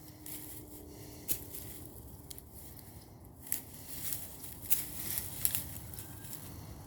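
Wood-chip mulch and soil rustling, with scattered crackles and snaps, as sweet potatoes are dug out by hand; the sharpest snaps come about three and a half, four and a half and five and a half seconds in.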